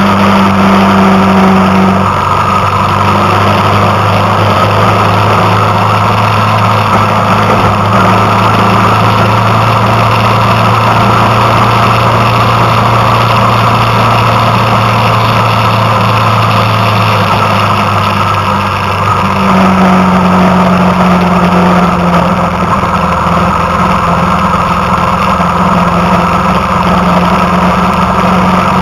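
Car engine and road noise heard from inside a moving car: a steady hum whose pitch shifts about two thirds of the way through.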